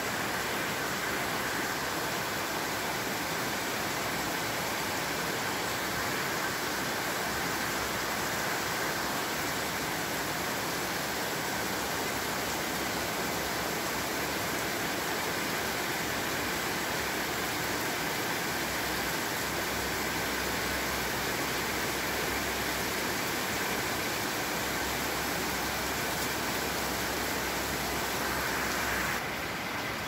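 Heavy rain pouring down in a steady, even hiss: a downpour.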